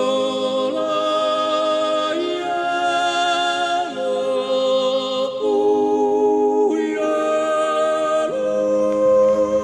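Unaccompanied sung melody in long held notes, moving to a new pitch about every one and a half seconds.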